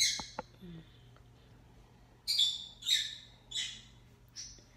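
Butter sizzling and spitting in a hot frying pan, in short sharp crackling bursts: one at the start and a run of four more in the second half.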